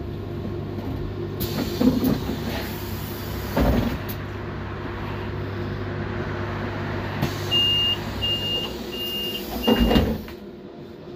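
Solaris Trollino 12M trolleybus standing at a stop, with a steady electrical hum. The pneumatic doors hiss with air and thump. Near the end, four short door-closing warning beeps sound, and the doors shut with a thump.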